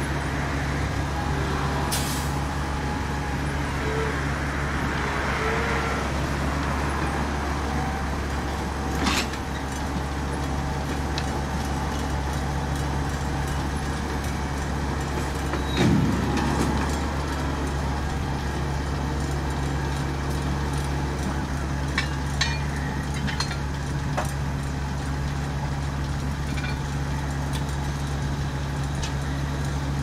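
Grimme Tectron 410 self-propelled potato harvester and a New Holland tractor with its trailer running together under load: a steady, heavy diesel drone with machinery rattle. A few sharper knocks break through, the loudest about 16 seconds in.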